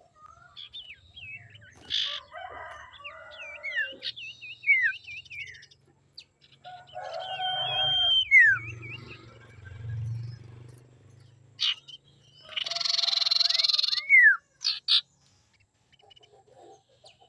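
Common iora calling and singing: clear whistled notes, quick downward-sliding slurs and wavering trills, broken by harsh raspy chatters, the longest of them a little over a second long about three-quarters of the way through.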